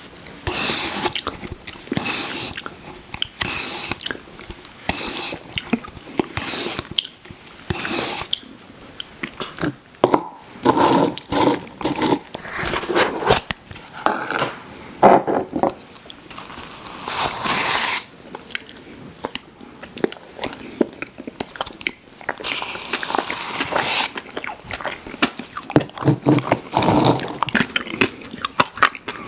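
Close-miked mouth sounds of someone eating ice cream: irregular bites and chewing, one after another, with short pauses.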